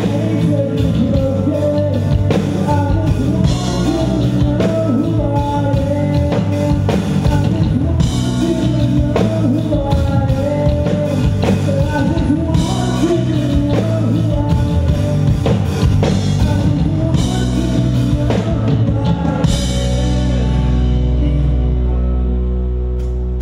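Live rock band playing with drum kit, guitars and singing. About three-quarters of the way through the drums stop and a held chord rings on, fading.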